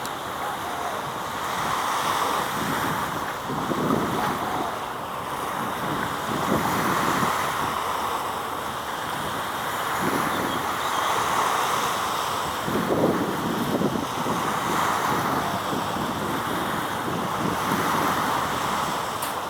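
Wind gusting across the microphone over a steady outdoor rush of noise, swelling and easing every few seconds.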